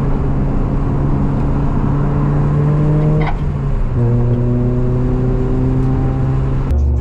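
Honda Prelude's H22 four-cylinder engine pulling under acceleration, heard from inside the cabin. About three seconds in the note breaks off with a click for an upshift, then the engine pulls again at a lower pitch, slowly climbing. It cuts off just before the end.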